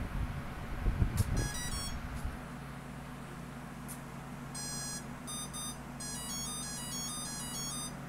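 ESC beep tones played through the wing's brushless motor as the battery is connected with the throttle at full: a short chirp about a second and a half in, then from about four and a half seconds on, runs of quick beeps stepping up and down in pitch like a little tune. This is the ESC's calibration signal that it has recorded full throttle. A few knocks and thumps come in the first two seconds.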